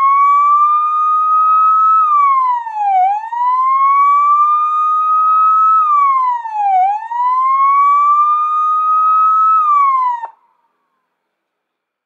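Police siren wailing: its pitch climbs slowly, holds briefly at the top, then drops quickly, repeating roughly every four seconds, and cuts off abruptly about ten seconds in.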